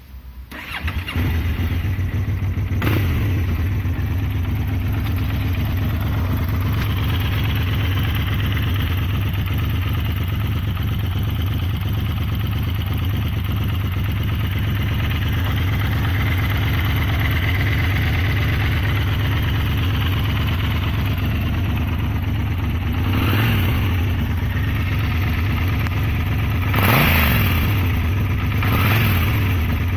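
Yamaha TDM 900's parallel-twin engine starting through a GPR Furore Nero aftermarket exhaust and settling into a steady idle. Near the end the throttle is blipped about three times, the pitch rising and falling with each blip.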